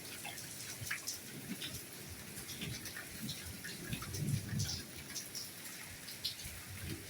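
Soft rain falling, a steady patter with many single drops striking close by. A brief low dull bump about four seconds in.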